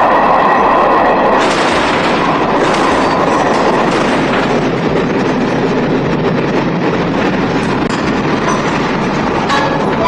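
Railway coaches rolling along the track: steady wheel-on-rail running noise that brightens about a second and a half in, with a short knock near the end.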